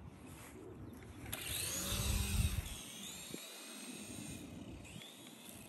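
Tiny electric motors of a toy RC helicopter with counter-rotating rotors spinning up to a high whine about a second in, wavering in pitch as it lifts off, then fading after about three seconds. A brief whine follows near the end.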